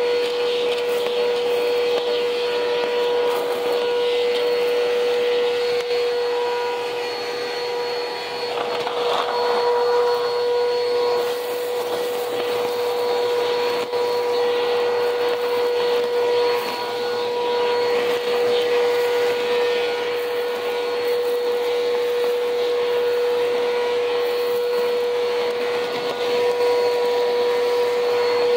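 Bissell CleanView vacuum cleaner running steadily over bare cement: a constant motor whine over the rush of suction.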